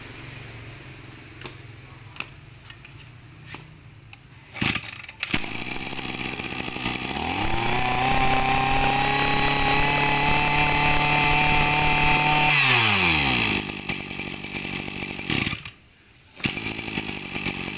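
Makita MEM264 26cc two-stroke brushcutter engine idling, then revved up to full throttle about seven seconds in and held there for about five seconds before the throttle is released and it falls back to idle.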